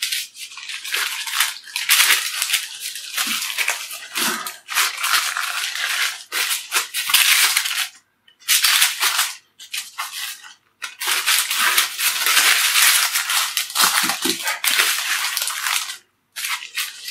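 Sheet of baking paper crinkling and rustling as it is handled, in an irregular run of scratchy bursts with a few short breaks.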